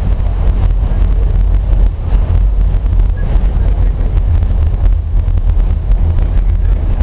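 Metro train running at speed, heard from inside the car: a steady, heavy low rumble of wheels on rails.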